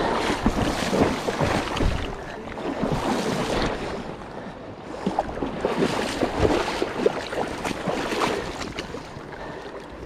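Splashing in shallow river water, coming in uneven surges with sharp crackles over a steady rushing hiss.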